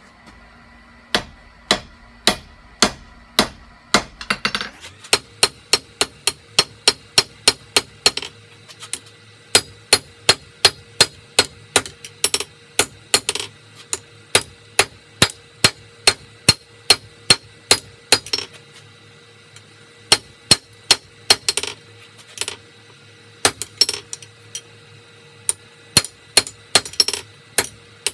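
Hand hammer forging leaf-spring steel on an anvil: a long run of blows, about two a second at first, then about three a second with a few short pauses, each blow with a metallic ring. A low steady hum sits underneath from about five seconds in.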